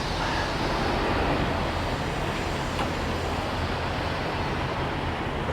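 Semi-truck under way: a steady, unchanging drone of engine and tyre noise.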